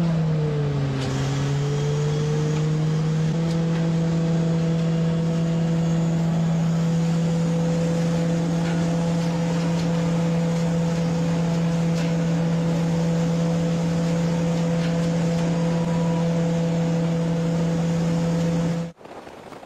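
Engine of a cherry harvesting machine running with a steady drone. Its pitch sags about a second in and comes back up, then holds steady until it cuts off abruptly near the end.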